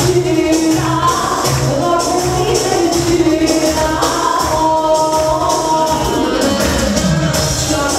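Live Albanian wedding music: a woman singing into a microphone over a steady beat with jingling hand percussion.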